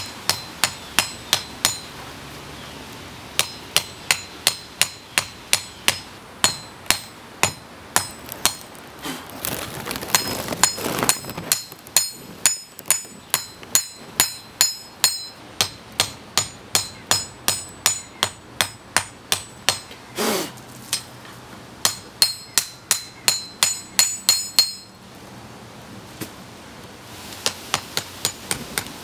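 Hand hammer forging a red-hot steel knife blank on an anvil: steady runs of sharp blows, about two to three a second, each with a high metallic ring. The hammering stops briefly about two seconds in and again near the end.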